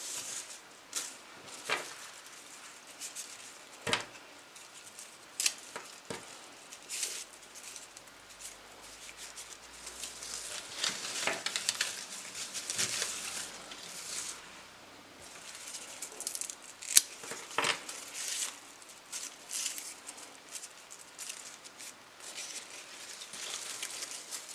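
Cut greenery, salal and dracaena leaves, rustling as it is handled and arranged, with scattered sharp snips and clicks of stems being cut with a knife; the loudest click comes about two-thirds of the way in.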